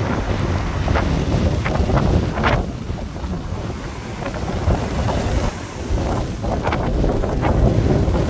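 Heavy storm waves breaking and washing over a shingle beach, with strong wind buffeting the microphone in a continuous low rumble. Several short surges of surf noise come as waves break.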